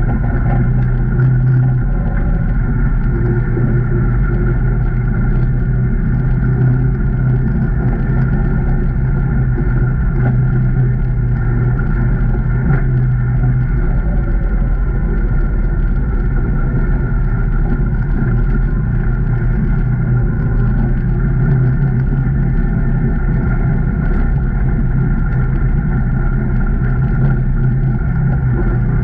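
2019 Can-Am Maverick Trail 800 side-by-side's Rotax V-twin engine running at a steady speed under way, a continuous even drone with no sharp changes.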